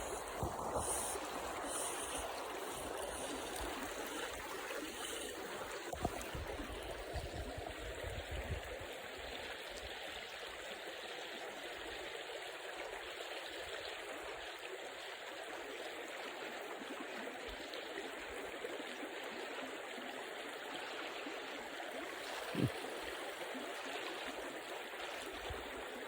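Small mountain river running over shallow rapids: a steady rushing and trickling of water. There is some low rumble in the first few seconds and one short knock near the end.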